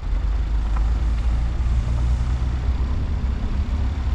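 Vehicle driving slowly on a rough dirt campground road: a loud, steady low rumble that comes in suddenly at the start.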